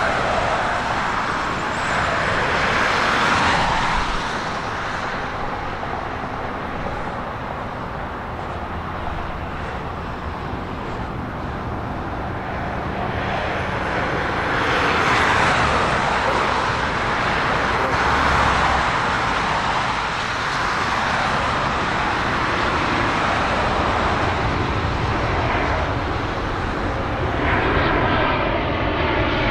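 Airplane engines running as aircraft move at the airport: a steady rushing noise that swells about three seconds in and again around fifteen to nineteen seconds. A wavering whine comes in near the end.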